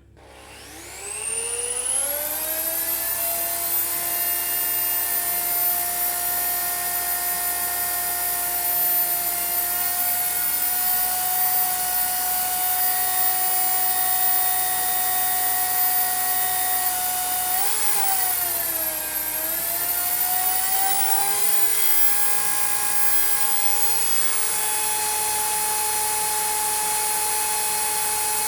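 Household electric drill spinning up with a rising whine, then running steadily as it drills into natural stone, a surface so hard that the bit goes in only about a centimetre. About 18 seconds in its pitch sags briefly and then recovers, running on slightly higher.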